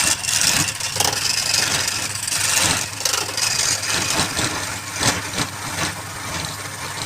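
Wood lathe running with a steady motor hum while a turning tool cuts the spinning wood, a scraping hiss with short irregular catches.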